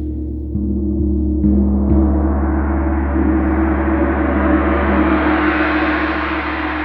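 Gong tapped softly a few times in the first two seconds, its ringing building into a full shimmering wash that grows brighter as it swells.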